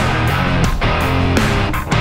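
Background rock music with electric guitar and a steady beat.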